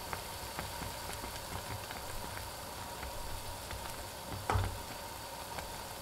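Shiitake mushroom and egg soup at a hard boil in a pan, bubbling and sizzling steadily with small pops, while a metal spoon stirs through it; a single knock about four and a half seconds in.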